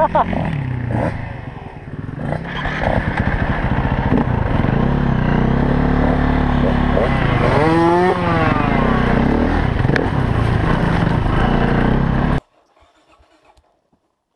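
Dirt bike engine running under way on a trail, its pitch rising and falling with the throttle, with a sharp rev up and back down about eight seconds in. The sound cuts off abruptly near the end.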